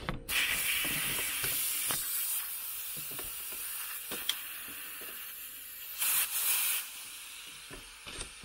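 Compressed air hissing steadily out of a QuadraLift air suspension line released at its valve block, bled off slowly to deflate the air spring. The hiss starts suddenly and grows louder for a moment about six seconds in.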